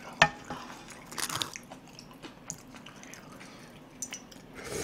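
Close-miked mukbang eating of pork soup: chewing with small wet mouth noises, slurps from a wooden spoon about a second in and again near the end, and a sharp click just after the start.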